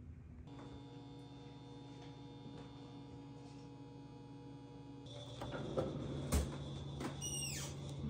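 A refrigerator's bottom freezer drawer being pulled open: clicks and knocks, then a short falling squeak, over a faint steady hum.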